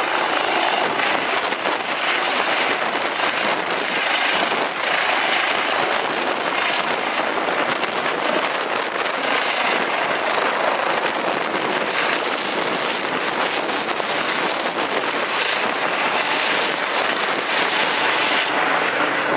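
Turbine helicopter lifting off and climbing away: a steady rush of engine and rotor noise that holds at an even level.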